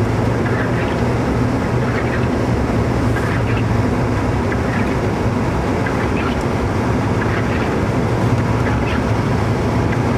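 Steady car interior noise while driving: engine hum and road and tyre noise on a snow-covered expressway.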